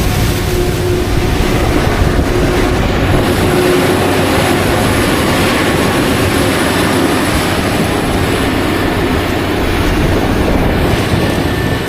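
Heavy farm machinery running steadily under load: diesel engines and working gear make a dense, even noise with a thin steady whine over it.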